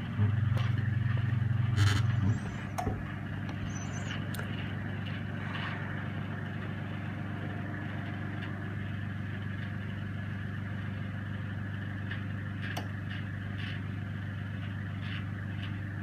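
Goodmans CB23S-U microwave oven running on its grill setting: a steady mains hum with fan noise. A louder hum in the first two seconds cuts off, and a few faint clicks follow.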